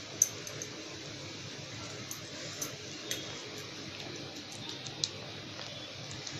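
Hands squeezing and rolling soft mashed-potato filling into balls over a steel plate: faint soft handling with a few light ticks and clicks, under a steady low hiss.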